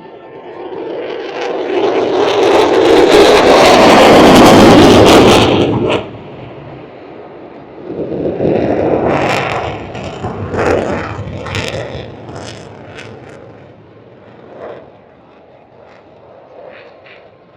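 Aircraft engine noise from a low pass, building up loudly over about five seconds and breaking off abruptly about six seconds in. Shorter swells of aircraft noise follow and die away.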